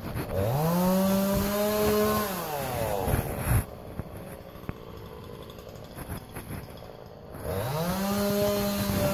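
Two-stroke chainsaw revved up to a steady high pitch, held for about two seconds and let fall back. After a few quieter seconds it revs up again near the end and holds.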